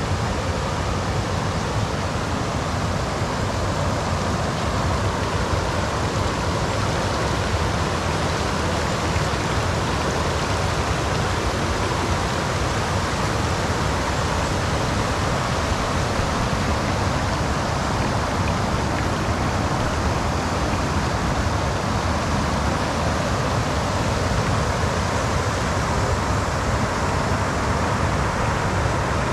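Steady rush of flowing river water, an even noise that holds without change.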